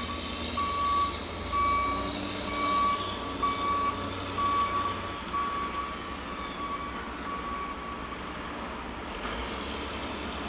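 Reversing alarm on heavy yard equipment beeping about once a second, growing fainter and stopping about eight seconds in, over a steady low machinery rumble.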